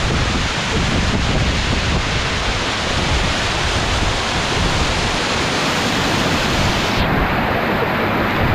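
Small waterfall rushing close to the microphone: a steady, loud rush of water with a low rumble. About seven seconds in, the high hiss drops away suddenly.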